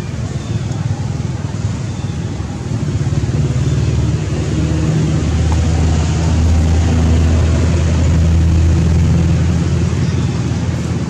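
A motor vehicle's engine running nearby: a steady low hum that grows louder a few seconds in and eases near the end.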